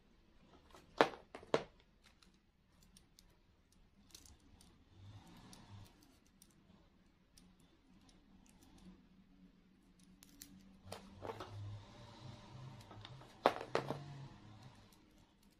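Quiet handling of crafting materials on a tabletop: a hot glue gun, a wrapped wire stem and a plastic leaf strip. Two pairs of sharp clicks come about a second in and again near the end.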